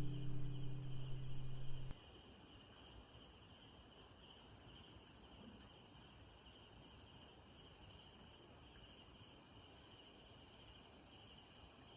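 The last note of acoustic guitar music rings out and stops about two seconds in, leaving a steady, high-pitched chorus of insects, crickets or cicadas, pulsing continuously.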